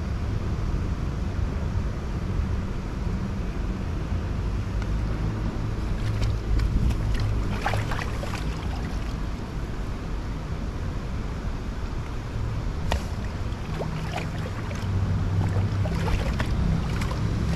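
Steady low rumble of wind on the microphone and running river water, with scattered sharp clicks and scrapes of fish being cleaned by hand on a rock. The clicks come in a cluster about a third of the way in and again near the end.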